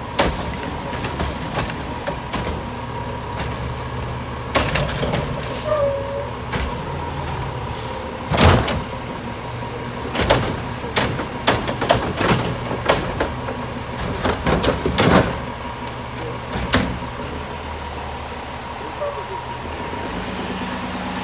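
Garbage truck engine running steadily, with a series of sharp bangs and clanks, loudest about eight seconds in and coming thick and fast over the following several seconds.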